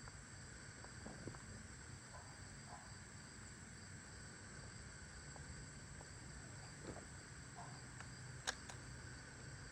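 Faint steady chirring of crickets, with a few soft clicks and taps and one sharper click near the end.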